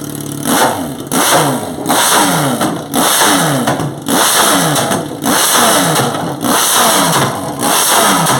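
Motorcycle engine with a loud exhaust, blipped on the throttle about once a second, each rev rising sharply and dropping back toward idle.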